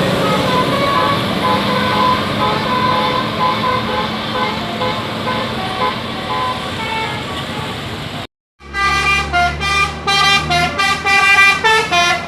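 Telolet basuri musical bus horn: a set of roof-mounted trumpet horns playing a tune of quick, changing notes over the low running of a bus engine. The sound breaks off for a moment about eight seconds in, then the horn tune comes back louder.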